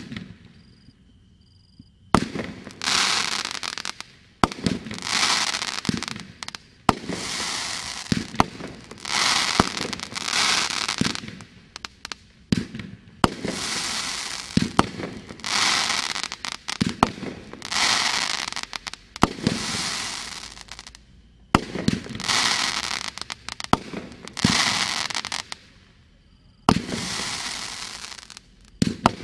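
A 500-gram, 25-shot consumer firework cake (Riding Shotgun) firing shot after shot, about one every two seconds, starting about two seconds in. Each shot is a sharp launch thump followed by a second or two of hissing and crackling as the stars break and burn.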